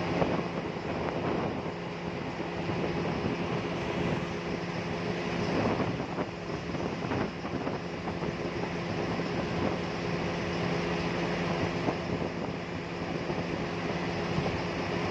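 Steady rushing of wind and river water, with a steady low hum running underneath.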